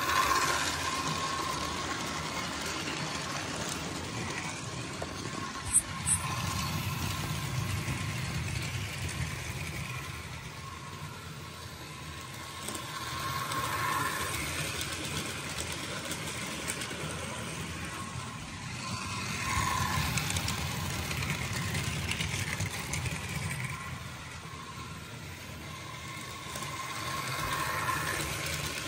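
Model railway diesel locomotive hauling freight wagons along the track: a steady motor hum with the rattle of wheels on rail, swelling and fading several times as the train passes close by. Two sharp clicks come about six seconds in.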